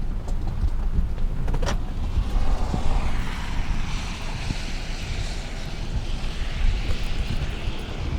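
Wind buffeting the microphone in ragged gusts over a steady rushing hiss of storm wind, with one sharp click about a second and a half in.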